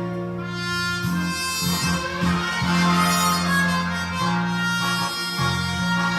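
Instrumental break of an enka backing track: a sustained, reedy lead melody over a steady bass line and accompaniment, with no singing.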